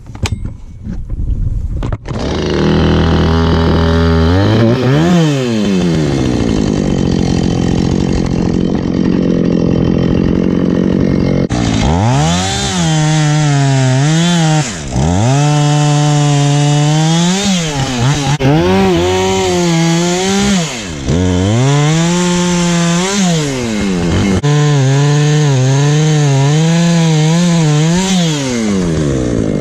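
Husqvarna 450 Rancher two-stroke chainsaw coming up to speed about two seconds in and revving once. From about halfway it runs at full throttle, its pitch repeatedly sagging and recovering as it bogs under load while cutting wood.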